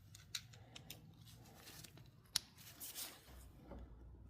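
Faint, scattered clicks and light scraping of hand tools being handled on the snowblower, with one sharper metallic click about two and a half seconds in.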